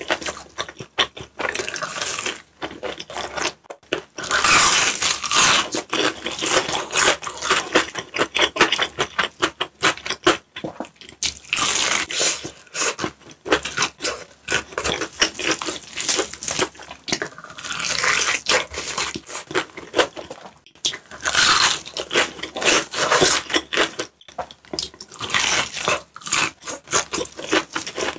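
Close-miked eating: crunchy bites into fried chicken and chewing of cheesy pizza, a dense crackle that swells into louder bursts of crunching every few seconds.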